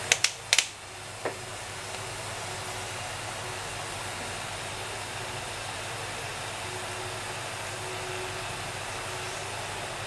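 Steady hiss of a gas stove heating a wok of corn oil and melted lamb fat, with a few sharp clicks in the first second or so.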